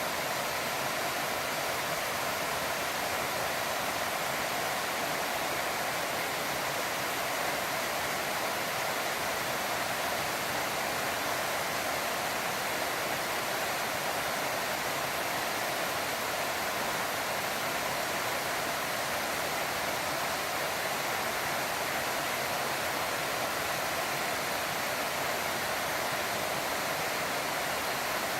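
An 8 m waterfall in a mountain stream, a steady, even rush of falling water that does not change.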